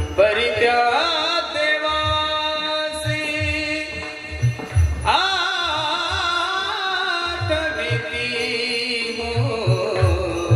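A male voice sings two long held devotional phrases with a wavering, vibrato-laden pitch, the second starting about halfway through. Steady hand-drum beats accompany the singing.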